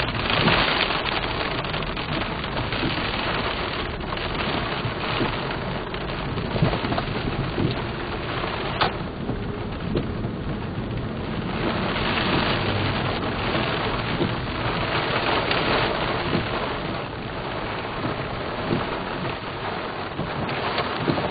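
Heavy thunderstorm rain pelting a vehicle's roof and windshield, a dense patter that comes in heavier and lighter spells, with one sharp tick about nine seconds in.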